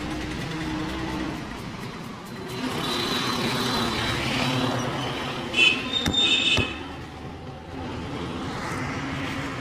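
Street traffic noise from passing vehicles, with a brief high-pitched tone and two sharp clicks a little past the middle.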